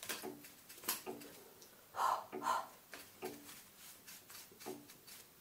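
Fingers tapping and scratching on an old ornate picture frame, with a few short puffs of breath blowing dust off it, the two loudest about two seconds in.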